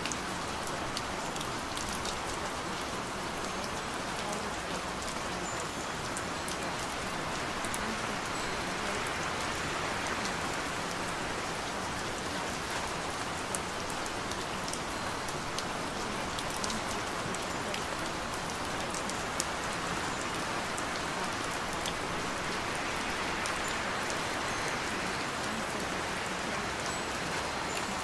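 Steady rain, an even hiss with scattered light drop ticks.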